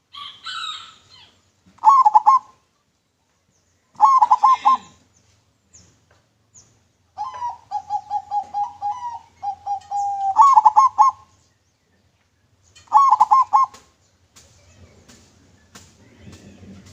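A local zebra dove (perkutut) is singing its cooing song with a clear voice. Short rolling coo phrases of a few notes come about every two seconds, and a longer run of quick cooing notes falls in the middle.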